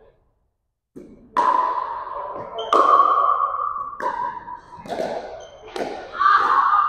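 Pickleball rally: paddles striking the hard plastic ball about five times, roughly a second apart, each hit a sharp pop that rings on in a reverberant gym.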